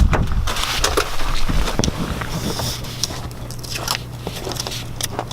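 Irregular crunching, scraping and clicking as parts are worked loose by hand on a wrecked Honda Civic, over a low steady hum.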